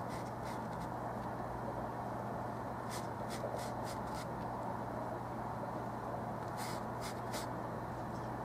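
Paintbrush stroking oil paint onto textured canvas in short scratchy strokes, two little runs of them, over a steady background hum and hiss.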